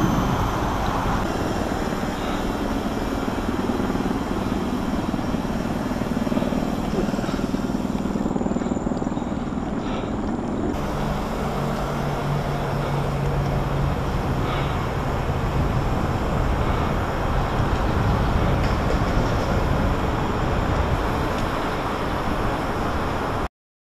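Steady rush of wind on the camera microphone and mountain-bike tyres rolling on a paved path while riding, with a low hum joining for several seconds about halfway through. The sound cuts off suddenly just before the end.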